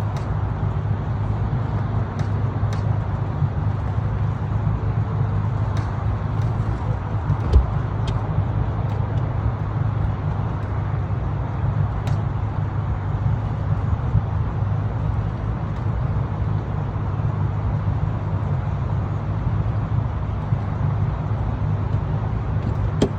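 A boat's engine running steadily at low speed, with a low, even drone. A single thump about seven and a half seconds in and a few faint clicks.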